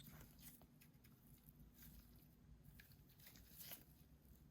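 Near silence: room tone with a low hum and a few faint, scattered clicks of small parts being handled.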